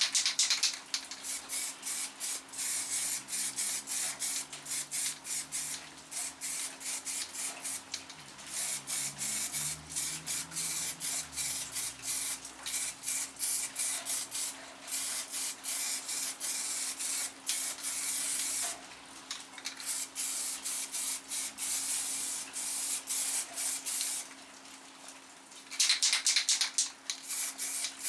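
Aerosol can of primer spraying in many short, quick bursts of hiss with brief gaps between them.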